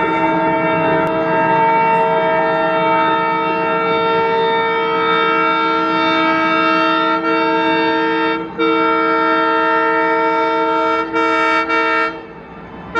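WDM3D ALCo diesel locomotive's horn sounding one long, loud blast of several steady tones at once, broken briefly a few times. It stops about a second before the end.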